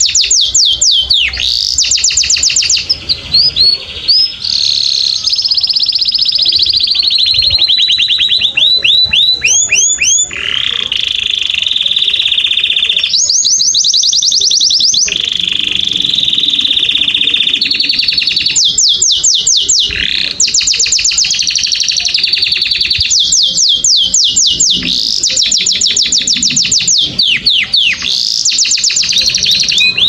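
Domestic canary singing a long continuous song: fast trills of repeated downward-sweeping notes alternating with sustained rolling tones, changing to a new phrase every few seconds.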